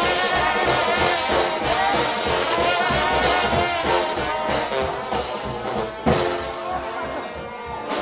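Trombone-led brass shout band playing with a drum kit, with a sharp hit about six seconds in, after which the music goes on more softly.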